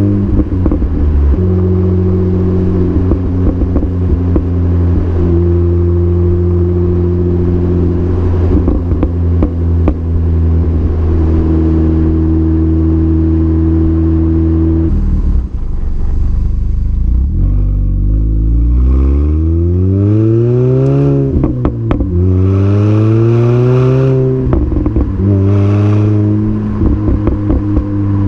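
Exhaust and engine of a 2005 Mini Cooper S R53, its supercharged 1.6-litre four-cylinder fitted with an Alta cat-back exhaust, Alta intake and Alta 17% supercharger pulley, heard from beside the tailpipe while driving. It drones steadily for about fifteen seconds and drops in pitch. It then rises in pitch twice as the car accelerates through the gears, falling at each upshift, and settles back to a steady drone near the end.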